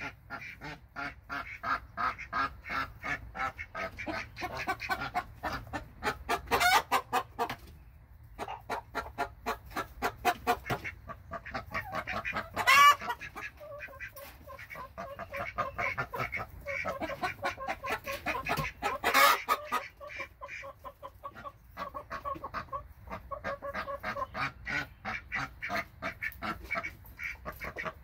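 Domestic fowl calling: a dense run of rapid short calls throughout, with three louder calls about six seconds apart.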